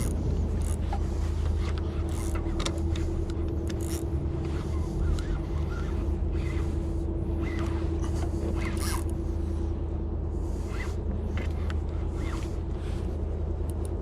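Boat motor running steadily, a low hum with a constant whine over it, with scattered light clicks and knocks.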